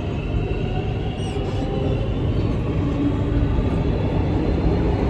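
North East Line metro train running underground, heard from inside the carriage: a steady rumble of wheels and running gear that grows a little louder.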